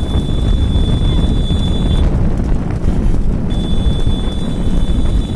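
Heavy wind buffeting the microphone over the low rumble of motorcycle engines and tyres moving at speed on a tarmac road. A steady high whine runs through it, cutting out for about a second and a half midway.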